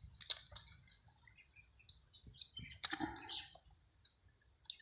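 Scattered small wet squelches, drips and clicks of mud and water being handled, with a brief faint murmur about three seconds in.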